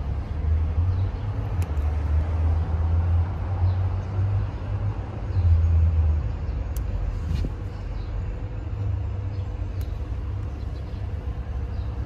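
A low, uneven outdoor rumble that swells and eases in patches, with a few faint ticks and rustles as fingers work through chili plant foliage, picking the peppers.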